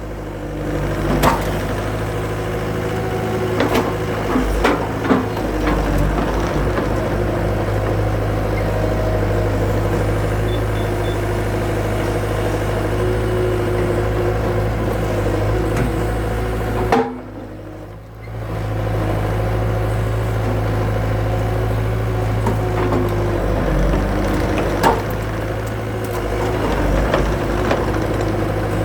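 Skid steer engine running steadily, with scattered knocks and cracks of wood rounds being split.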